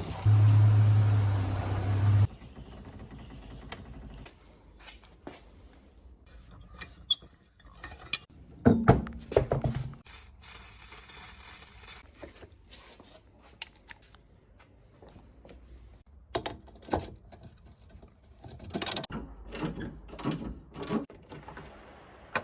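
Hand tools at work on a car's front suspension: scattered metallic clicks, knocks and ratcheting. A loud, steady noisy hum fills the first two seconds and cuts off suddenly, and a short high hiss comes about halfway through.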